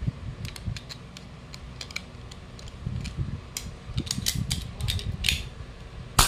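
Light metal clicks and rattles of a PCP air rifle receiver's side lever and hammer being worked by hand to check the trigger mechanism, growing busier about halfway through. Near the end comes one loud, sharp metallic snap from the action.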